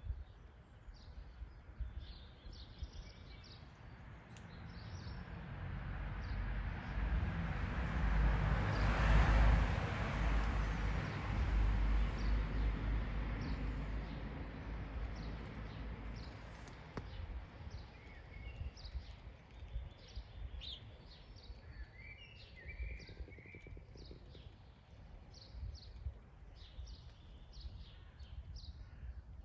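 Small birds chirping repeatedly over a low rumble. Near the middle, a broad rushing sound swells up and fades away over about eight seconds.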